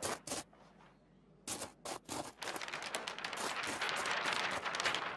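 A large paper sheet being rolled up around a cardboard tube: a few separate clicks, then from about halfway a dense, continuous crackling and crinkling of the paper.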